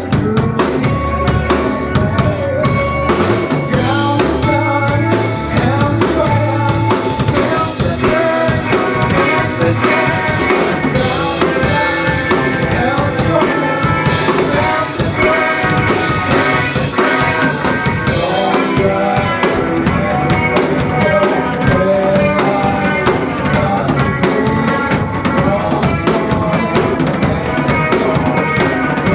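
A band playing live, with a full drum kit (kick, snare and rimshots) driving a steady beat under sustained instrumental parts.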